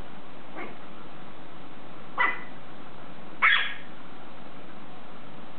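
Small dogs yapping: a faint yap about half a second in, then two sharp, high-pitched yaps a little over a second apart.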